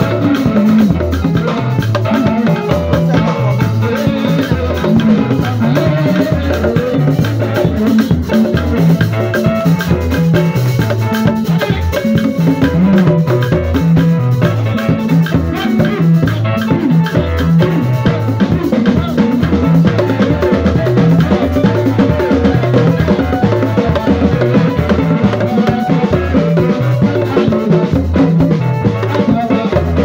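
Live band music with a drum kit and tall wooden hand drums beaten with sticks, playing a steady, continuous rhythm.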